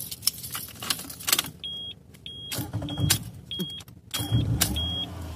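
Six short, high electronic beeps at uneven intervals, mixed with clicks and rustling handling noises.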